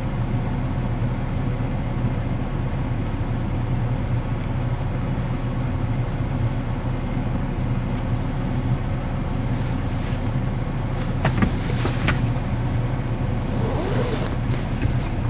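Semi truck's diesel engine idling steadily, heard from inside the cab as a constant low hum. A few light clicks and a brief rustle come near the end.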